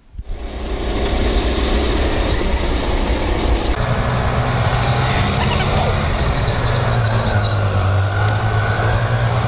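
Go-kart driving at speed: a loud, steady motor drone with tyre and wind noise. It comes in suddenly at the start, and the low drone grows stronger a few seconds in.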